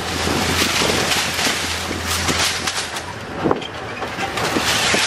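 Open safari vehicle driving along a sandy track: wind buffeting the microphone over a low engine hum that fades about three seconds in, with occasional short knocks and rattles from the moving vehicle.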